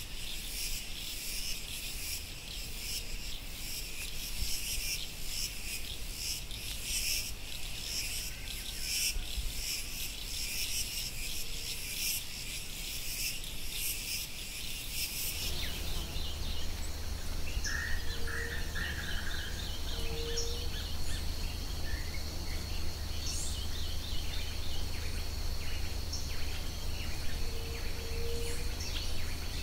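Insect chorus of crickets chirring in dense, rapid pulses. About fifteen seconds in it gives way to a thinner, steady high insect whine, with a few short bird calls and a low steady hum underneath.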